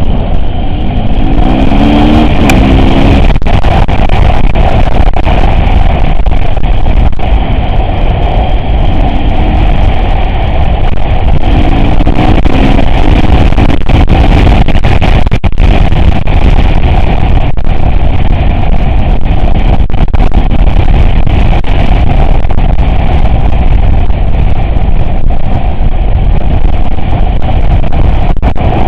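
Off-road vehicle running and driving over rough ground, a loud continuous rumble with many short knocks and jolts, and brief rising engine notes about two seconds in and again around twelve seconds in.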